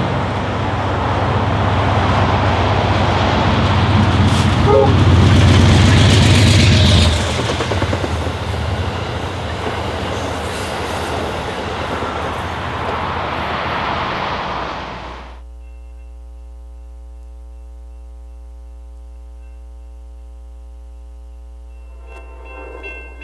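An Amtrak passenger train going by, its diesel locomotive and rail noise loud for the first seven seconds or so, then the coaches rolling past a little quieter. About fifteen seconds in the sound cuts off suddenly and a steady hum of several held tones takes over.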